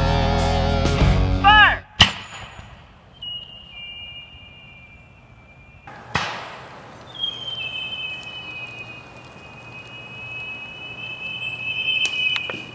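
Heavy rock guitar music that cuts off about two seconds in on a sharp crack. A second sharp crack comes about six seconds in. A thin, steady high whistle runs through the rest and grows louder near the end.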